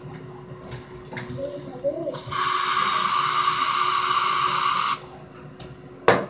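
Aerosol air freshener can sprayed in one steady hiss lasting nearly three seconds, starting about two seconds in. Near the end, a single sharp knock.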